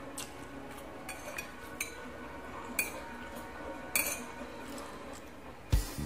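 Metal chopsticks clinking against a ceramic bowl as fried instant noodles are stirred and lifted: several sharp, ringing clinks about a second apart, then a louder knock near the end.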